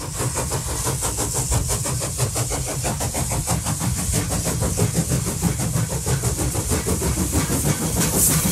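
Steam locomotive working under load, its exhaust beats coming in a fast, even rhythm over a low rumble and steady hiss.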